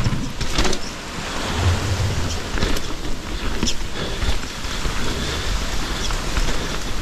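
Wind rushing over the microphone and knobby tyres rolling on dirt as an enduro mountain bike descends singletrack, with scattered knocks and rattles from the bike over rough ground.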